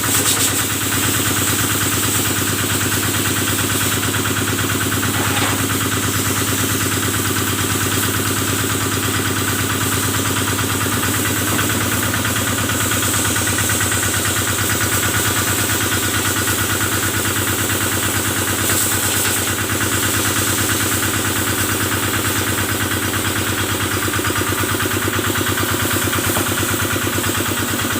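Kubota stationary engine powering a cattle-washing water sprayer, running steadily at an even speed.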